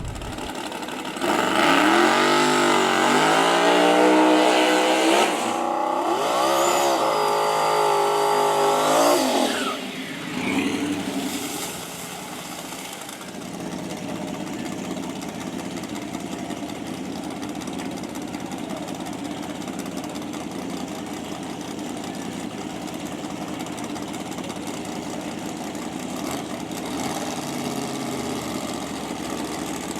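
Race car engine accelerating hard, its pitch climbing with a dip about five seconds in, then cutting off near ten seconds. A short rev follows, and then a quieter steady engine drone continues.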